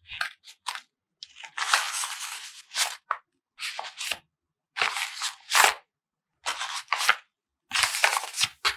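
Paper being handled, crinkled and cut in a run of short scratchy bursts, with a longer crinkle about two seconds in.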